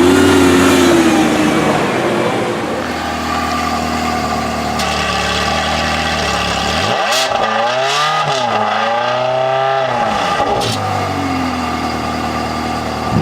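Supercar engine revving and idling: at the start a Lamborghini Gallardo Spyder's V10 falls away from a rev, then a Ferrari 360 Modena's V8 idles steadily. About seven seconds in the V8 is blipped up to high revs and falls back to idle over about three seconds.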